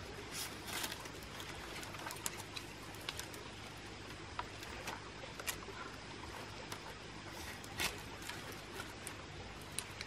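Thin bamboo strips rustling and crackling as hands twist and tuck them into the braided rim of a woven bamboo basket, with scattered sharp clicks, the loudest about eight seconds in.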